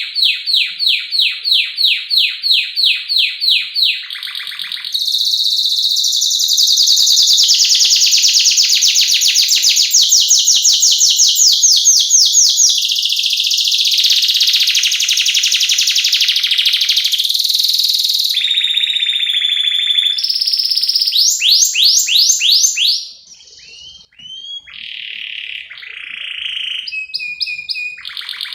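Domestic canary singing: a run of repeated sweeping notes at about three a second, then long, fast rolling trills, breaking up near the end into shorter, varied phrases.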